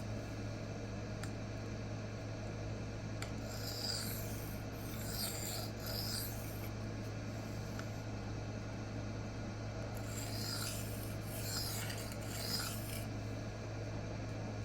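A K110 steel knife blade being stroked across a Rikon 400/800-grit CBN sharpening plate: a gritty scraping in uneven passes, some strokes brighter than others.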